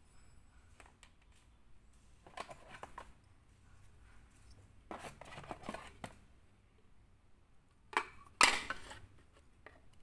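Handling noises of a toy and its clear plastic wrapping: several short bouts of rustling and scraping, the loudest a sharp burst about eight and a half seconds in.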